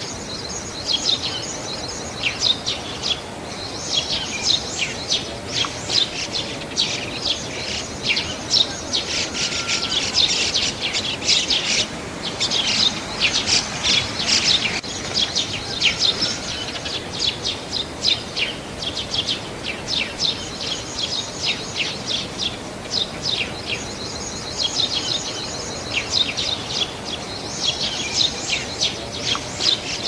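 Eurasian tree sparrows chirping: many short, sharp chirps in quick runs, busiest in the middle, thinning out briefly past the middle and picking up again near the end.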